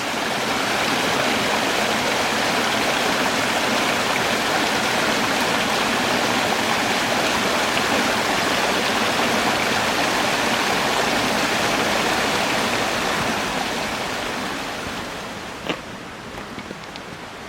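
Rushing water of a mountain stream, a steady even rush that eases to a softer level in the last few seconds, with a single sharp click near the end.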